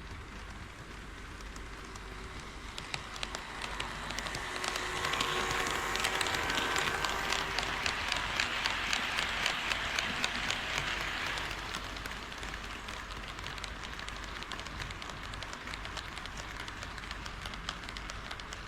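HO scale model train running on KATO Unitrack, its wheels clicking rapidly over the rail joints with a light rolling hiss. It grows louder a few seconds in, is loudest for several seconds as the train passes, then eases off.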